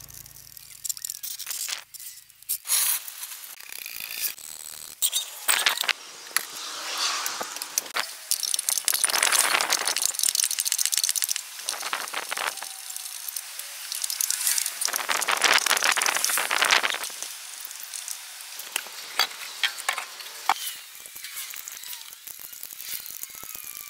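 Metal clinks, knocks and rattles from hand work on a car's exhaust pipes and fittings underneath the car, with two longer stretches of harsh scraping noise.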